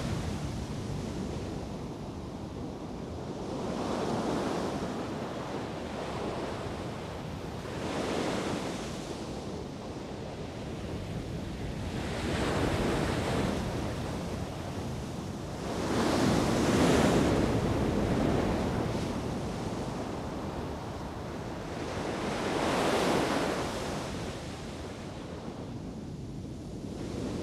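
Waves washing in, a rushing swell of water that builds and fades five times about every four to six seconds, the loudest a little past the middle, with wind on the microphone underneath.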